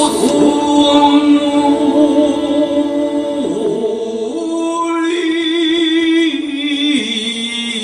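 Music with singing: long, held sung notes that waver slightly, over sustained instrumental tones.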